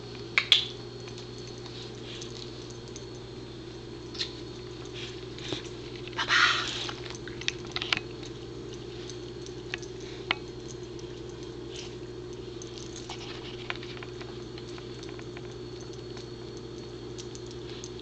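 Pembroke Welsh Corgi snuffling and nosing along a fleece dog bed, hunting for crumbs of a crunchy treat: scattered short sniffs and small scratchy noises, the longest about six seconds in, over a steady low hum.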